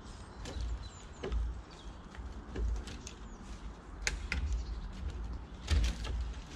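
Low wind rumble on the camera microphone, with scattered sharp snaps and rustles of twigs and brush as someone moves through fallen branches, the loudest knock near the end.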